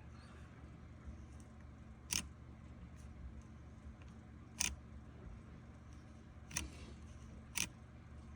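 Jog shuttle ring on a control panel clicking as it is turned left and right and springs back to center: four sharp clicks, a second or two apart, over a faint steady hum.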